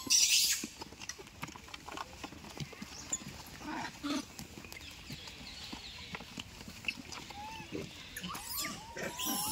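A troop of rhesus macaques squabbling and feeding at a crate of tomatoes: a loud harsh burst right at the start, then scattered clicks and knocks, with short squeaky calls near the end.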